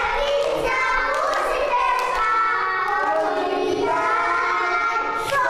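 Children singing a song together, with a few hand claps.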